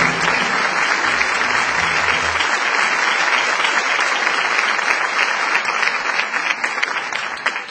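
Audience applauding steadily, with the low notes of closing music under it that stop about two and a half seconds in; near the end the applause thins to separate claps and begins to fade.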